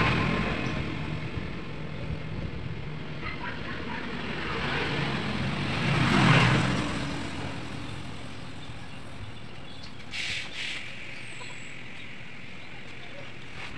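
A road vehicle passing, its noise swelling to a peak about six seconds in and fading away, over steady background traffic; a short hiss comes about ten seconds in.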